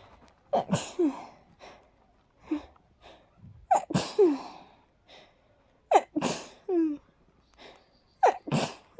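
A person's airy sneezes, four in a row about two to three seconds apart, each a sharp burst with a short falling voiced tail, with quick breaths in between. The sneezing is set off by dust from cleaning.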